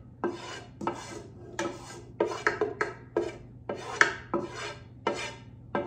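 Wooden spoon scraping sautéed onions out of a large pan into a slow cooker crock, in about a dozen short strokes, roughly two a second.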